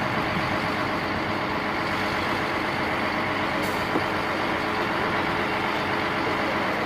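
Mercedes-Benz concrete mixer truck's diesel engine running steadily, with a short hiss about three and a half seconds in.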